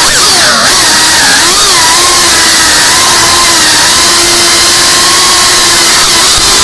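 FPV quadcopter's motors and propellers whining loudly. The pitch rises and falls with the throttle for the first two seconds or so, then holds nearly steady.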